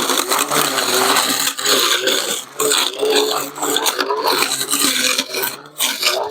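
Cordless battery brush cutter running and cutting through grass and brush, its motor pitch wavering as the load changes, with scraping and rasping from the cutting.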